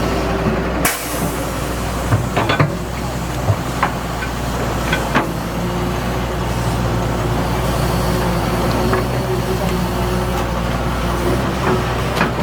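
Heavy diesel construction machinery engine running steadily, with a few sharp clanks and knocks scattered through and a short hiss about a second in.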